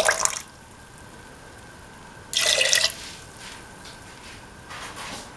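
Coconut milk being poured into a pot of vegetables, splashing into the liquid in short spurts: one at the very start, a louder one about two and a half seconds in, then a few faint drips near the end.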